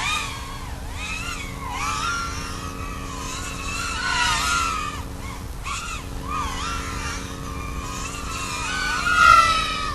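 Small FPV quadcopter's brushless motors (1106 size, 4300kV) with two-blade 3-inch props whining, the pitch sweeping up and down with throttle changes. It is loudest about nine seconds in.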